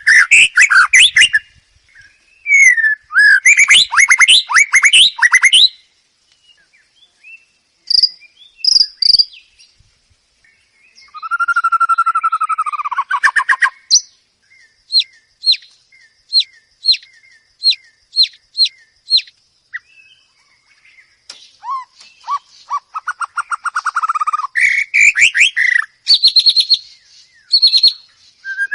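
White-rumped shama (murai batu) singing a varied song: fast trills and chattering phrases, clear whistled glides, and a run of sharp repeated notes at about two a second, with short pauses between phrases.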